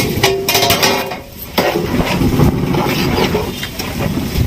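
Rice being tipped into a large metal pot of water, with a run of clinks and knocks against the pot and a low rush of water, heaviest about halfway through.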